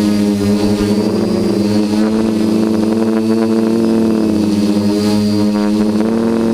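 Quadcopter's electric motors and propellers buzzing in flight, a steady pitched drone whose pitch wavers slightly up and down as the throttle changes.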